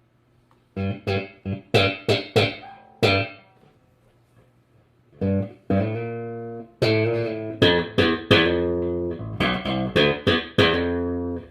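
Electric bass guitar fitted with a Hipshot A-style aluminum bridge, played through an amp: a quick run of short plucked notes, a pause of about two seconds, then a longer phrase of ringing, sustained notes. Bright tone with a nice snap on the attack.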